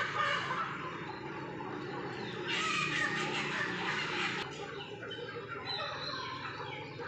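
Chickens clucking in the background, with a louder scratchy noise lasting about two seconds in the middle.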